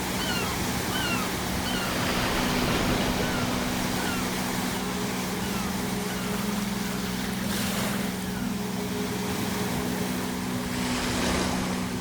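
Ocean surf with waves breaking, the wash surging a few times: about two seconds in, again near the middle, and near the end. In the first few seconds, seagulls give a run of short calls that fall in pitch, about two a second. A steady low hum runs underneath.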